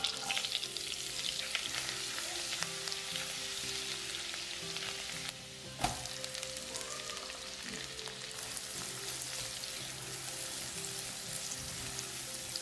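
Minced garlic sizzling in hot butter and oil in a nonstick pan, a steady crackling hiss. Near the middle there is a single sharp knock as chopped onion is tipped in, and the sizzling carries on while it is stirred.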